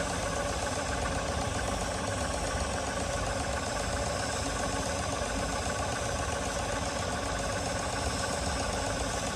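A 4-inch scale Burrell general purpose traction engine running under steam while standing still, its engine and motion working at a steady, even pace.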